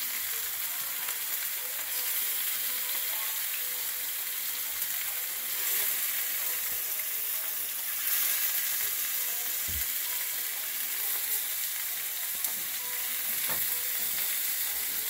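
Seasoned oxtail pieces frying in vegetable oil in a stainless steel skillet as they brown: a steady high sizzle that swells a few times, with a single low knock about ten seconds in.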